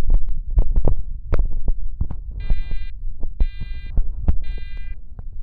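Fire alarm horn sounding in the temporal-three evacuation pattern: three half-second electronic beeps, starting about two and a half seconds in, that signal a fire alarm. Rapid, irregular low knocks and clicks run throughout and are the loudest sound.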